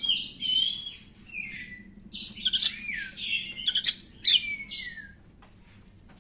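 Oriental magpie-robin (kacer) singing: a run of varied whistled phrases with downward-sliding notes and harsh clicks, stopping about five seconds in.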